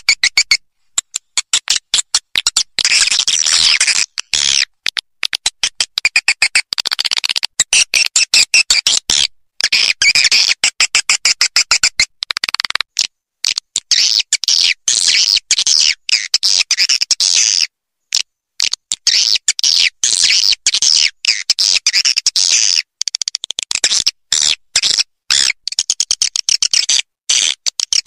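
Swiftlet lure call recording: dense, high-pitched swiftlet twittering made of rapid chirps and clicks, broken by a few short pauses, of the kind played to draw swiftlets into a nesting house.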